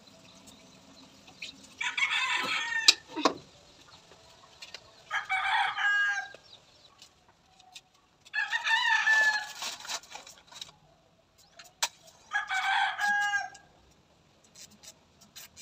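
Roosters crowing: four long crows about three to four seconds apart. A sharp knock comes about three seconds in, just after the first crow.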